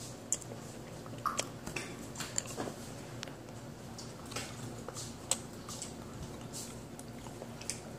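Close-up mouth sounds of someone chewing a piece of chewy fruit candy (an Airheads Bite), with scattered small wet clicks and smacks.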